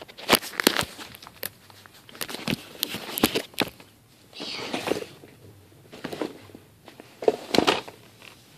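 Handling noise from a phone held close to its microphone: a run of sharp clicks and knocks, with a short stretch of rustling about halfway through.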